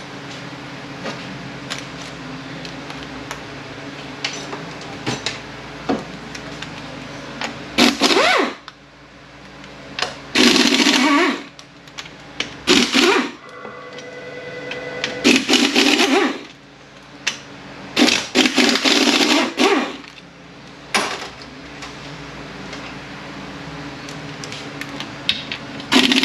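Power wrench running in about six short bursts, each a second or less, as the bolts come out of a 231J transfer case, with clicks and clinks of metal between the bursts.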